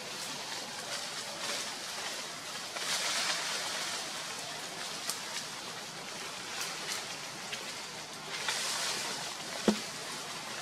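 Outdoor forest ambience: a steady hiss that swells twice, with scattered small clicks and one sharp snap near the end.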